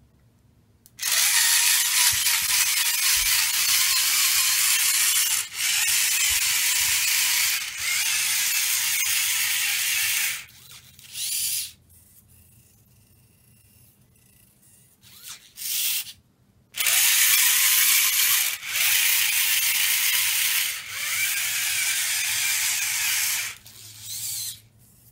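Small electric servo motors of a 3D-printed legged robot running as its legs and long neck move: a loud mechanical whirring in stretches of a few seconds, stopping for a few seconds midway apart from a couple of short bursts.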